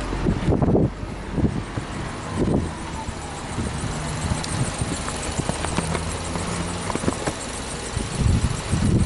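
Subaru Legacy Touring Wagon's 2.5-litre flat-four boxer engine idling steadily, with irregular low thumps and clicks from the camera being carried.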